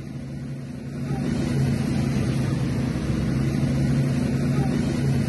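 A large vehicle's engine running steadily with a low hum as it drives through floodwater, with a rushing noise that grows louder about a second in.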